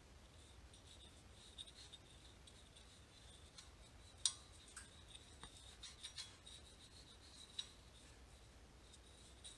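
Faint scratchy strokes of an anti-seize applicator brush rubbing over a steel wheel hub face, with a few light clicks and taps, the sharpest about four seconds in.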